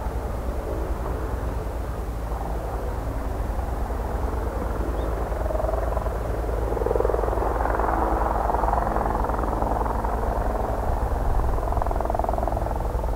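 Bell 412 twin-engine helicopter hovering low: a steady rumble of rotor and engines with a rapid, even beat from the blades, growing a little louder about halfway through.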